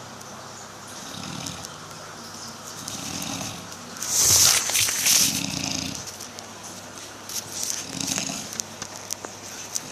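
Snoring: a low, rasping snore about every two seconds, with a louder noisy burst of breath about four seconds in and a few faint clicks near the end.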